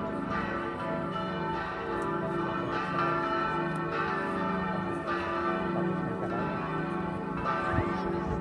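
Partial peal of four church bells ringing together in an irregular, overlapping pattern. Two of the bells were cast in 1736 (about 1,400 kg and 1,100 kg, tuned d' and e'), and two were cast by Perner in 2013 (706 kg and 421 kg, tuned f♯' and a').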